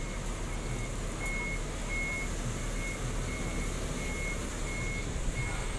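A bus's warning beeper sounding a steady string of short, high beeps, about three every two seconds, over the low rumble of the bus's diesel engine as it manoeuvres.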